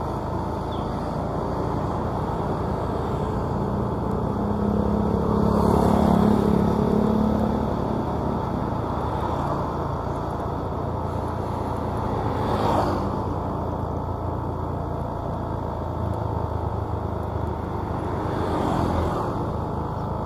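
Steady engine and road rumble of a vehicle driving along a paved road. Three times it swells louder and fades, about six, thirteen and nineteen seconds in, as other vehicles pass.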